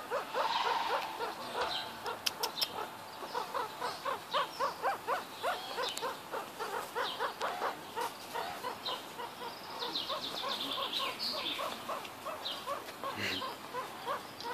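Meerkats calling: a long run of short repeated peeps, several a second, with a quick patter of higher, finer calls near the middle.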